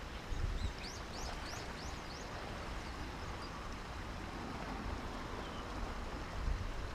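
Steady outdoor background noise with a small bird giving a quick run of about six short, high, rising chirps about a second in.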